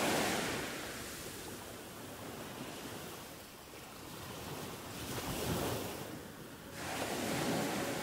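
Ocean surf breaking and washing up a sandy beach. The rush rises and falls in surges, swelling at the start, again about five seconds in and near the end.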